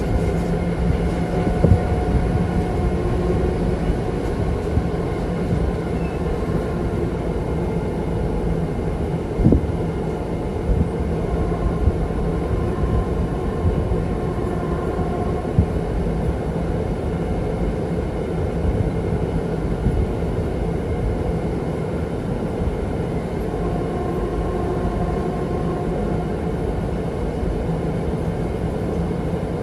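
Train rolling along the track: a steady rumble of wheels on rails with a faint constant hum, broken by a few sharp clicks, the loudest about nine and a half seconds in.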